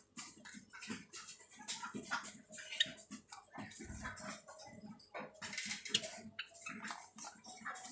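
White Java sparrows pecking at egg-and-greens soft food in a plastic tub: rapid, irregular tapping and clicking of beaks.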